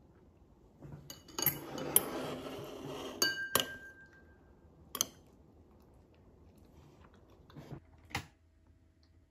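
Metal chopsticks scraping and clinking against a plastic takeout tray and a ceramic bowl while serving saucy tteokbokki. A rustling scrape runs for about two seconds, then a few sharp clinks follow, one ringing briefly.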